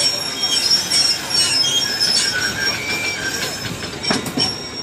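A caboose train of freight cars and a wooden-style caboose rolling slowly past on steel wheels, with a thin high squeal from the wheel flanges on the rails. A couple of sharp clicks of wheels over rail joints come about four seconds in.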